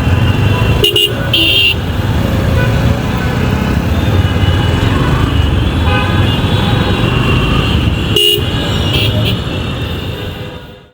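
City road traffic with a steady engine rumble, broken by short vehicle horn toots twice about a second in and once more near eight seconds; the sound fades out at the end.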